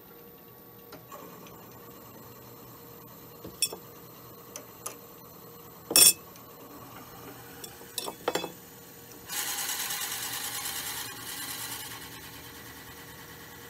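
Wood lathe spinning a willow blank while a 1/2-inch brad point bit fed from the tailstock drills into its end grain. A few sharp knocks, the loudest about six seconds in, then from about nine seconds a loud hiss of the bit cutting and throwing out chips for two to three seconds before easing off.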